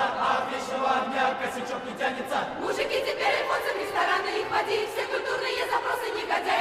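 Mixed complaints choir of men and women singing together, many voices in harmony, with the sung words carrying on over a change in the music about two and a half seconds in.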